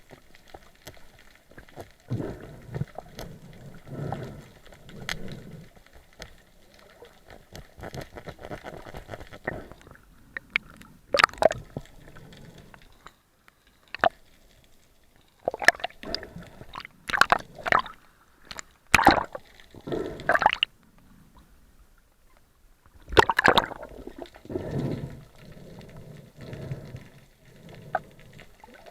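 Water gurgling and sloshing, with several loud bubbling bursts in the middle stretch.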